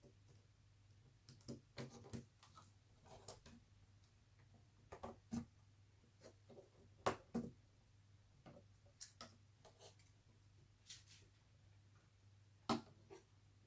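Scattered light clicks and taps of a small screwdriver and plastic parts as the keyboard screws are taken out of a laptop, the two sharpest about seven and twelve and a half seconds in.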